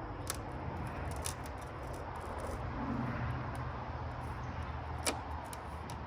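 A steady low hum with a few sharp clicks and taps, the loudest click about five seconds in.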